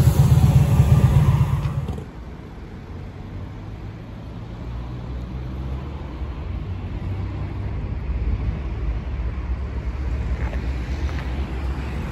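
A cruiser motorcycle idling close by, loud and low, cutting off abruptly about two seconds in. After that comes a quieter, steady rumble of road traffic passing on the street.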